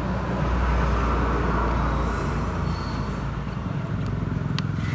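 Road traffic noise, with the low rumble of a heavy vehicle going past in the first two seconds. A few light clicks near the end.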